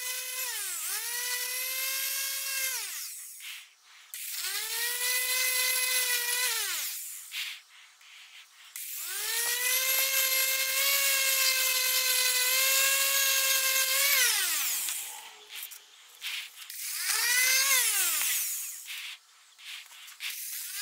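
Electric random orbital sander switched on and off several times: its high whine rises as the motor spins up, holds steady and falls away as it stops. It is already running at the start, dips briefly and stops, then starts three more times; the third run is the longest, about five seconds, and the last is short.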